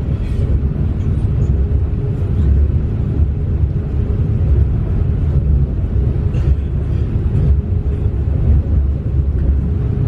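Small mountain river flowing: a steady rush of water, heaviest in the low end, with no breaks.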